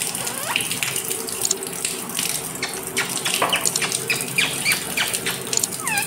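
Water running and splashing onto a caged parakeet during its bath, with a few short chirps from the bird.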